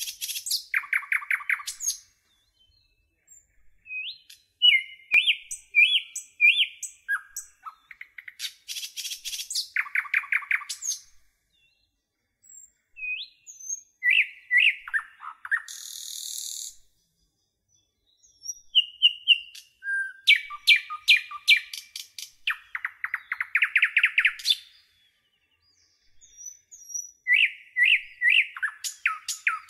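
Songbirds chirping and trilling in short phrases of a few seconds, with gaps of silence between them.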